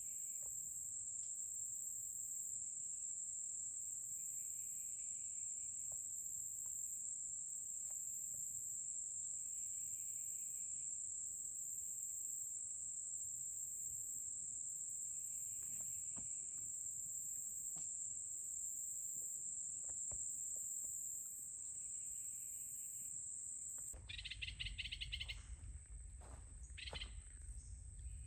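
Summer woodland insects making a steady, high, continuous drone with a faster pulsing chirp above it, and a soft call repeating every few seconds. About 24 seconds in, the sound changes to a low wind rumble on the microphone, with birds calling.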